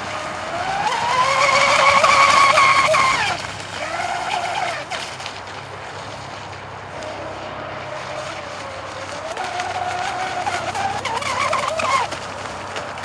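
Motor of an RC catamaran speedboat running at speed. Its pitch climbs as the throttle opens about half a second in, holds high and loud, then drops away about three seconds in; after a quieter stretch it climbs again and cuts back about twelve seconds in.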